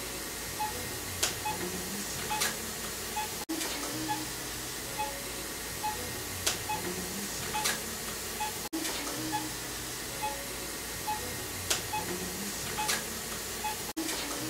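Quiet looped background music: a short electronic phrase of held low notes and soft percussion with a high blip about every 0.6 s, repeating about every five seconds.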